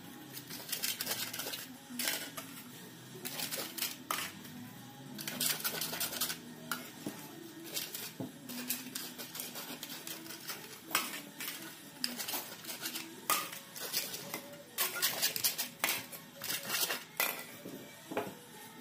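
Irregular light clinks, taps and crinkles of thin aluminium foil cups and a brush against a metal pan as the cups are greased with oil.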